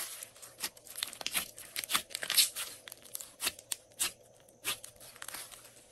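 Glossy slime squeezed and folded by hand, giving off a string of irregular sharp pops and clicks.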